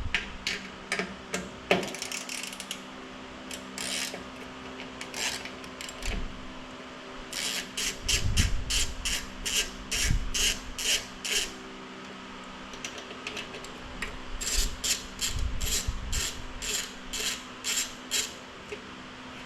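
Ratchet wrench clicking in quick runs as nuts are taken off, with a few dull knocks of the tool against the part.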